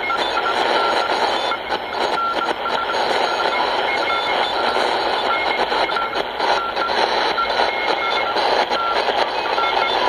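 Grundig shortwave radio's speaker playing steady hissing static with short, irregularly spaced beeps at two pitches, one higher than the other: an odd signal heard on the shortwave band.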